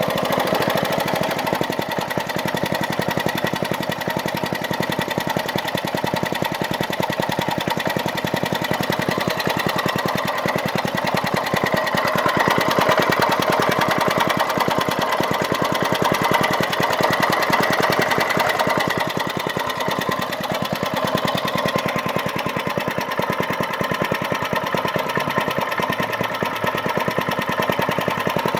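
Small 1995 Briggs & Stratton engine running steadily. Its speed picks up a little about twelve seconds in and eases back about eight seconds later.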